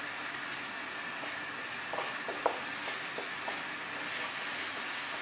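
Chopped onions sizzling steadily in melted butter in a nonstick pan, being lightly sautéed until soft, with a few light scrapes of a wooden spatula stirring them about two to three and a half seconds in.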